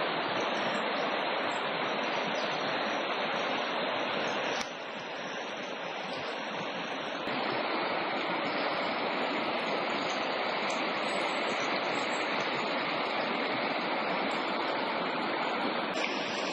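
Steady rush of river water flowing past floating ice pancakes, an even hiss. It drops suddenly about four and a half seconds in and comes back up a few seconds later.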